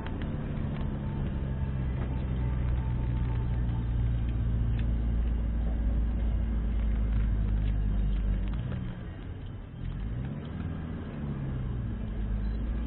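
Car engine running under steady load with tyre and road noise, heard from inside the moving vehicle. About two-thirds of the way through, the engine eases off and its note dips, then climbs again.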